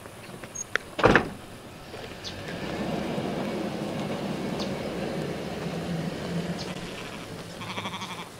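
A pickup truck pulling away: a sharp thump about a second in, then the truck's engine and tyres run steadily for several seconds and fade near the end. A sheep bleats briefly near the end.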